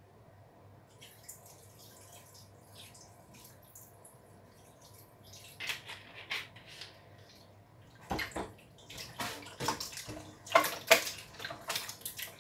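Raw beef being washed with vinegar in a stainless steel pot: quiet, faint handling sounds at first, then from about eight seconds in, irregular splashing and sloshing as hands rub the meat in the liquid.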